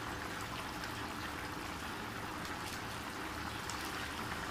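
Butter chicken curry boiling hard in an open pan over a high flame: steady bubbling with small scattered pops.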